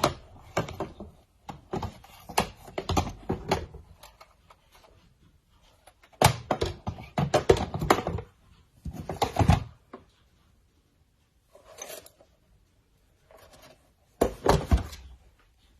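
Old mechanical alarm clocks being handled and set down on a hard surface: clusters of knocks, clicks and clatter with short pauses between.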